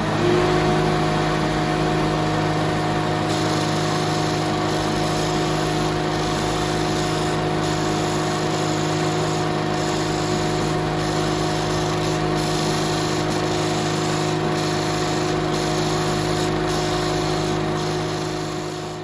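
Disc sander motor running with a steady hum. From about three seconds in, the hiss of the timber coaster edge being ground on the sanding disc joins it, breaking off briefly again and again. The sound fades near the end.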